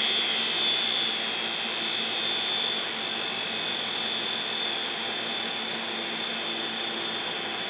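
Open 500 GB Maxtor hard drive spinning with its crashed read/write heads scraping the platter surfaces: a steady high hiss over a faint hum, slowly getting quieter. The scraping is the sign of a head crash on both sides of all platters.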